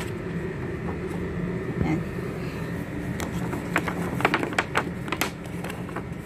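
Cardboard doughnut boxes being handled: a run of sharp taps and clicks of cardboard from about three seconds in, over a steady low hum.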